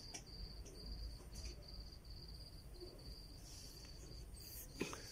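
Faint insect chirping, typical of a cricket: a high, even trill in short runs, one after another. A single sharp click sounds near the end.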